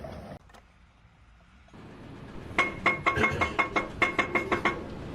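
After a brief near-silent gap, a quick run of about a dozen sharp metallic clinks, roughly six a second, each ringing at the same pitch, then stopping.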